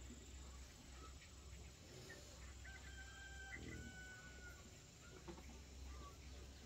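A chicken calling faintly, one drawn-out call about three seconds in, over a low steady hum.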